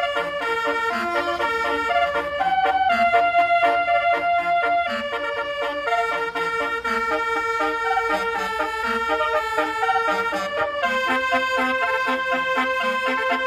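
Basuri musical air horn playing a tune: held notes that step up and down in pitch, several tones sounding together, over a quick pulsing lower line.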